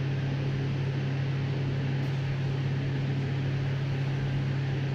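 Electric actuator motors of a MET LIFT UP functional medical bed running steadily, driving the bed into its chair position from the remote: a constant low motor hum with a faint hiss.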